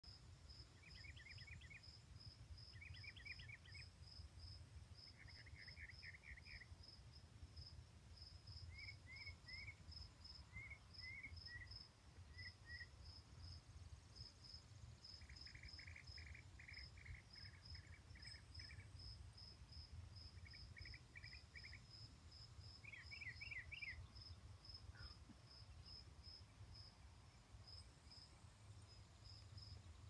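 Faint evening sounds: a songbird singing short trilled phrases every couple of seconds, with pauses between runs, over an insect's steady high chirping at about two to three chirps a second.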